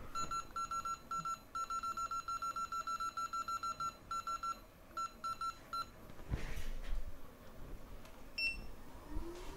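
Runs of short, identical electronic beeps, about six a second at their fastest, like a bench rework station's buttons being pressed or held to set it, stopping about six seconds in. Then a brief rush of noise, a single short chirp, and near the end a whine that rises and levels off as a motor spins up.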